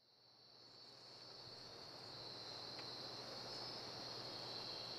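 Insect ambience: a steady high-pitched chirring trill like crickets, fading in from silence over the first second or so, with a faint low hum beneath.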